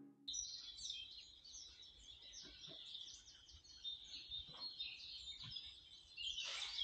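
Faint birdsong: a steady stream of quick, high chirping notes. A louder hiss of outdoor noise comes in near the end.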